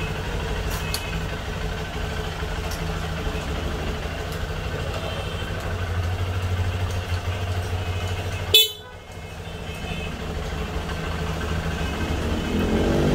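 Honda CRF150's single-cylinder engine idling with a steady low hum, and a short horn beep about eight and a half seconds in.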